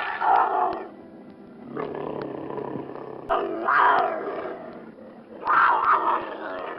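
A large animal roaring three times, each call about a second long, with a rougher, lower stretch between the first and second.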